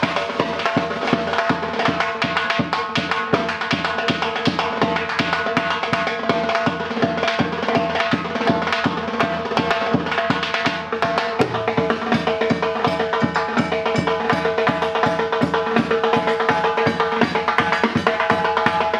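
Uzbek surnay, a double-reed shawm, playing long held notes over fast, steady drumming.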